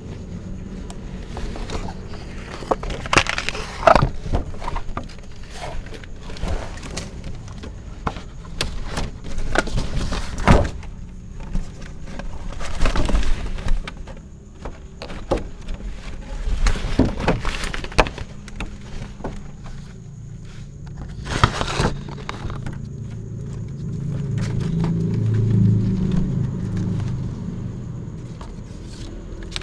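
Irregular knocks and clicks as a kitten eats mutton satay from a pile with bamboo skewers right in front of the camera and bumps it. A low rumble builds and fades over the last few seconds.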